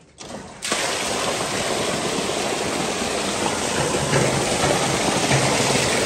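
Water pouring out of a slurry tanker's discharge pipe into a slurry channel, starting suddenly about half a second in and then running steadily. It is puddle water being emptied in to thin out thick slurry.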